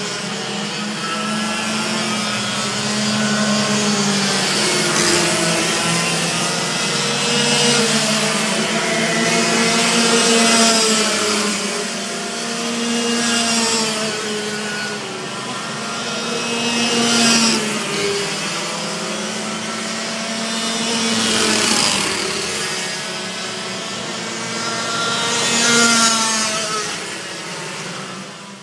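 Several racing karts' engines buzzing and sliding up and down in pitch as they race on a wet track. The sound swells and fades as each kart passes close, with a hiss of tyre spray off the wet surface at each pass.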